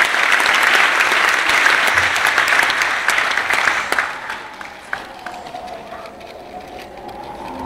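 Circus audience applauding, the dense clapping fading away after about four seconds.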